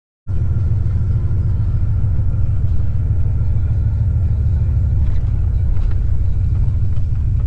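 Steady low engine and road rumble inside a moving pickup truck's cab. It starts just after silence and cuts off abruptly at the end.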